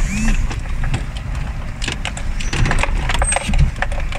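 Car cabin noise while driving slowly over a potholed, broken asphalt road: a low rumble with repeated knocks and rattles as the car jolts through the holes.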